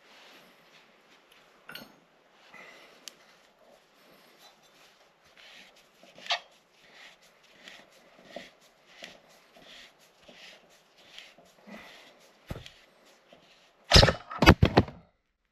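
Hand tools and parts being handled while taking an ATV apart: light, irregular scraping and clicking, then a quick cluster of loud knocks near the end.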